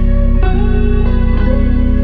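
Instrumental background music with plucked-string notes over sustained bass; the notes change about twice.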